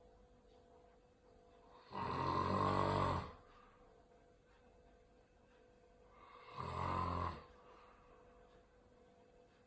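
Snoring: two long, rasping snores on the in-breath, the first about two seconds in and the second about six and a half seconds in, with quiet breathing gaps between.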